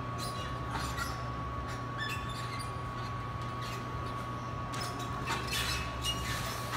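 Steel-framed uneven bars, braced with cables, creak and click as a gymnast swings on them, with a cluster of clicks near the end. A steady high-pitched tone and a low hum run underneath.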